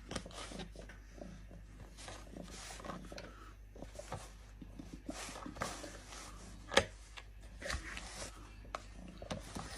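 A cat's quiet sounds among scattered small knocks and rustles, with one sharp click about seven seconds in.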